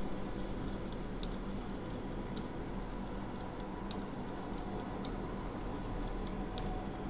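Canon imagePROGRAF PRO-500 large-format inkjet printer running as a print feeds out: a steady low hum with a sharp light tick about every second and a quarter, five times in all.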